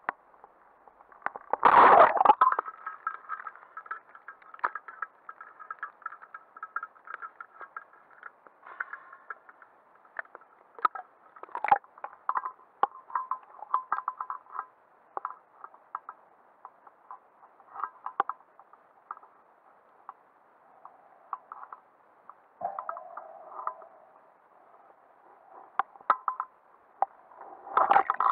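Underwater sound through a camera housing: a speargun fires about two seconds in, a single loud burst, followed by scattered sharp clicks and crackles, with another louder cluster of clicks near the end.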